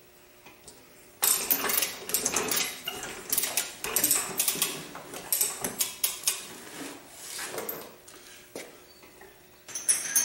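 Steel chain of a hand chain hoist rattling and clinking as it is pulled hand over hand, in uneven spells for several seconds. Near the end, a few short metallic clinks.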